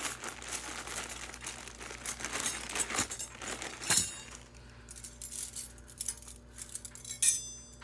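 Silver-plated forks and spoons clinking and jangling against each other as they are pulled from a plastic zip-top bag and handled in bunches, with some crinkling of the bag. The clinks come thick for the first few seconds, with one sharp clink about four seconds in, then thin out.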